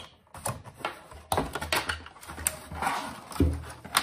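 Packaging handling: the fan box's insert lifted and the case fan pulled free, with scattered knocks and clicks, scraping rubs and a dull thump about three and a half seconds in.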